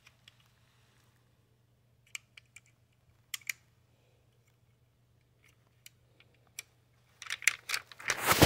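Handling noise: a few light, scattered clicks and taps, then from about seven seconds in a stretch of louder rustling and knocking, over a faint steady low hum.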